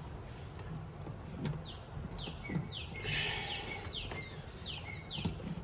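A bird calling nearby: a series of about seven quick, high notes, each sliding downward, roughly two a second.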